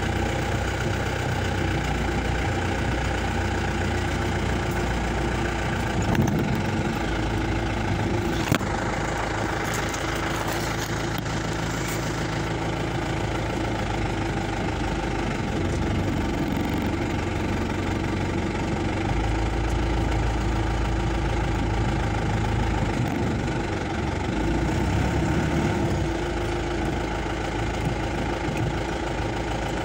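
Off-road 4x4's engine running at low speed as the vehicle crawls through dense bush, heard from inside the cab. One sharp knock about a third of the way through.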